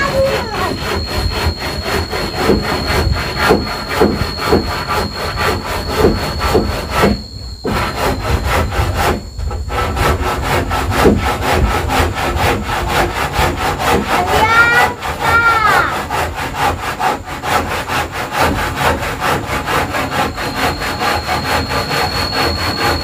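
Saw cutting through wood in rapid, even strokes.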